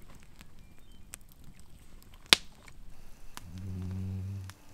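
Campfire crackling: scattered small crackles with one sharp pop about halfway through. Near the end a low, closed-mouth "mm-hmm" is hummed for about a second.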